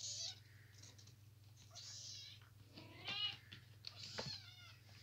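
A kitten meowing, four short high-pitched mews a second or so apart, the third the loudest.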